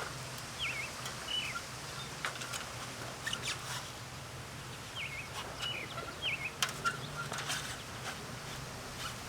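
A bird singing a short phrase of quick chirps twice, about a second in and again about five seconds in, over scattered light rustles and clicks and a steady low hum.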